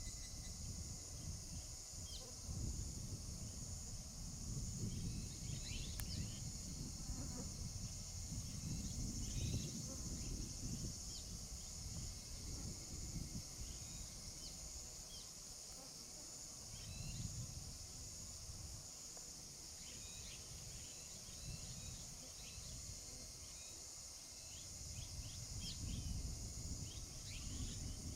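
Flock of red-rumped swallows giving short chirping calls, scattered throughout and more frequent in the second half. Underneath runs a steady high-pitched insect drone and a low, uneven rumble.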